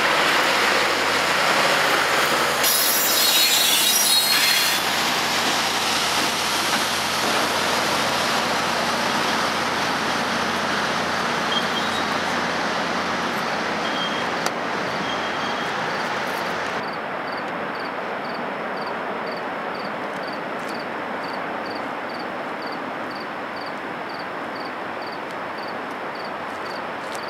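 A diesel-hauled passenger train rolling past, its trailing locomotive and wheels on the rails, with a high wheel squeal about three seconds in, then fading slowly. Later a quieter steady rail noise remains, with faint high pips about twice a second.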